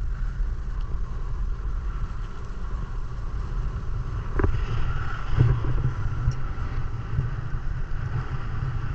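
Speedboat engine running steadily, a low rumble under wind noise on the microphone, with a single click about four and a half seconds in.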